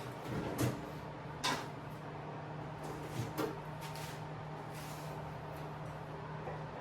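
Several short, sharp clicks and knocks of hand-tool work on a mini bike frame, over a steady low hum.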